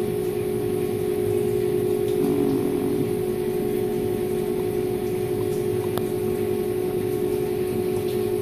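Haas V1 CNC vertical mill running, a steady whine over machine and coolant noise, as a center drill feeds slowly down. One faint click about six seconds in.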